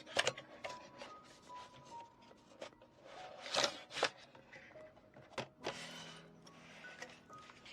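Packaging being handled: sharp clicks and rustling, with two longer rustles in the middle, over soft background music with light melodic notes.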